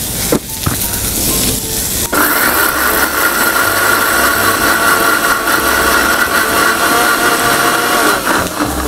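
Electric mixer grinder (mixie) running with its small steel jar, grinding grated coconut, curry leaves and cumin into a coconut masala: a steady high-pitched whine. A few clicks of the jar and lid come first, and the motor starts about two seconds in and stops near the end.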